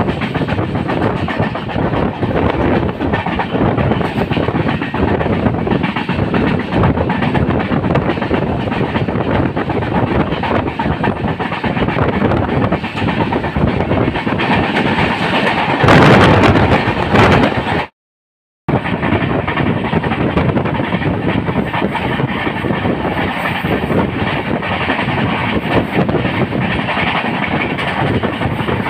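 Jan Shatabdi Express train running on the Konkan Railway: a steady rumble and rattle of wheels on the rails. It swells louder for a second or two a little past the middle, then cuts out for about half a second before carrying on.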